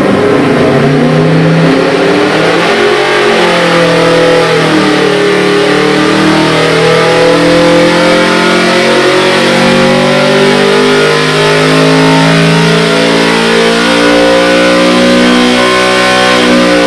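427-cubic-inch small-block Ford V8 race engine (Dart block, mechanical roller camshaft) at full throttle on an engine dyno during a sweep pull. Its pitch rises steadily under load from about 2,500 to about 7,500 rpm.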